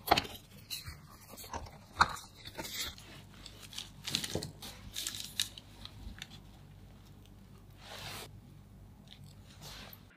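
Parchment paper and a plastic rolling mat rustling and crinkling as a sponge cake roll is rolled up by hand, with sharp clicks and taps against a wooden board, two of the loudest near the start and about two seconds in.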